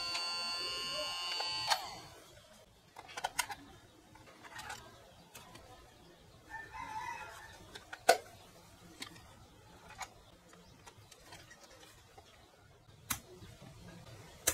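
Small electric motor of a Mini DV tape rewinder whining steadily as it spins the tape, then stopping with a click a little under two seconds in. After that come scattered sharp plastic clicks and knocks from handling the rewinder's case, the loudest about eight seconds in.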